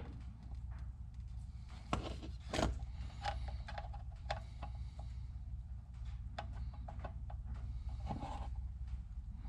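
Light clicks and scrapes of a circuit board and soldering iron being handled while a loose connector pin is resoldered, the two loudest ticks about two seconds in, over a steady low hum.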